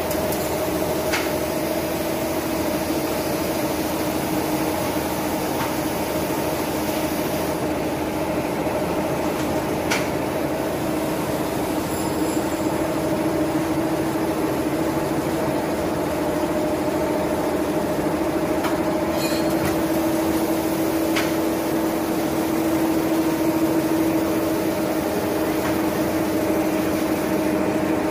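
DIPO FF-270SBR flat bag making machine running steadily: an even mechanical hum with a held tone as the plastic film feeds over its rollers, with a few faint clicks scattered through.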